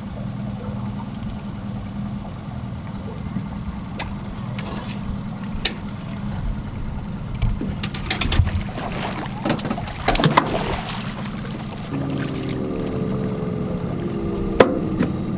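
Outboard boat motor running steadily at trolling speed, with a few sharp knocks and a noisy flurry of handling near the middle. About twelve seconds in, a higher, steady engine note joins the low hum.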